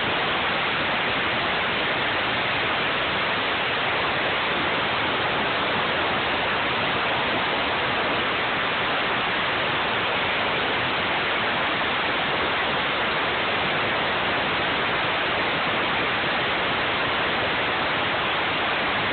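Mighty Viper PRO bridge CNC mill (VMC Pro-3223AG) milling a cavity in a metal die block, heard as a steady, even hiss that does not change.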